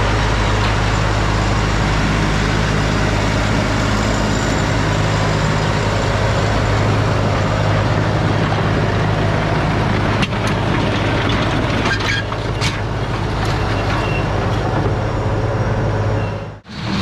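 LS MT357 compact tractor's diesel engine running steadily under work, with a few sharp metallic clanks about two-thirds of the way in.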